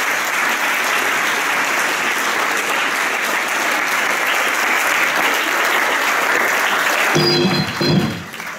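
A hall full of students applauding steadily. The clapping stops abruptly about seven seconds in, and a brief pitched musical sound follows.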